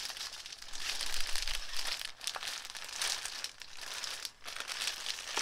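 Plastic packaging of braiding hair extensions crinkling and rustling as it is handled, in an irregular run of crackles.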